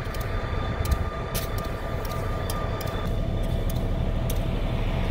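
EMD SD40 diesel-electric locomotive's 16-cylinder two-stroke engine running, a steady low rumble with a faint whine that drops out about three seconds in.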